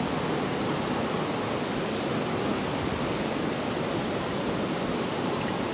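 Steady rush of flowing river water, an even noise without pauses or surges.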